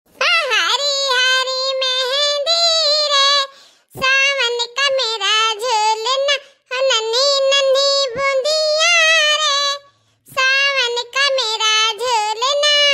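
A high-pitched cartoon-character voice singing unaccompanied, with long held notes, in four phrases separated by short breaks.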